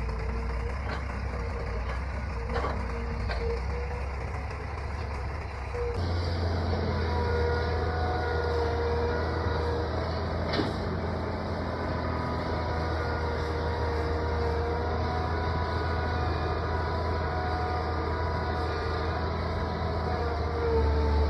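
Heavy diesel engine of an excavator running steadily, with a few sharp metallic knocks; the engine sound changes abruptly about six seconds in.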